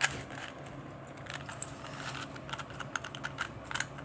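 Rubik's Cube being scrambled by hand: its plastic layers are twisted, giving irregular quick clicks and clacks, with a sharper click right at the start and another about a second and a half in.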